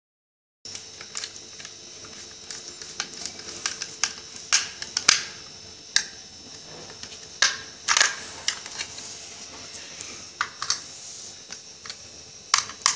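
Screwdriver working the screws of a modular fan regulator and socket plate on a small box: irregular sharp clicks and short scrapes of metal on the screw heads and plastic, with a few louder scrapes midway.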